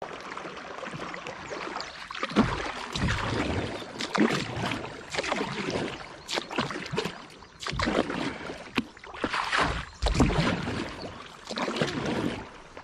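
Kayak paddle strokes splashing in the river, one about every second or so, with a few low thumps among them.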